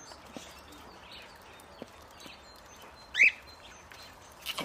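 A goat gives one short, loud bleat about three seconds in. Faint bird chirps and a few soft knocks sound in the background.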